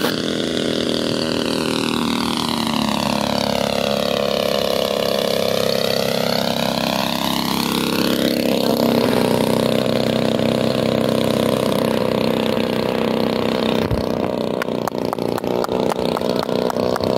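Nitro glow engine of a large RC plane running at low throttle on its landing approach, its tone swirling as the plane passes close by. In the last few seconds the engine idles with an uneven, pulsing beat.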